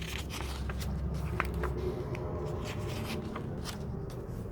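Pages of a picture book being handled and turned: paper rustling with a run of small crisp clicks and scrapes.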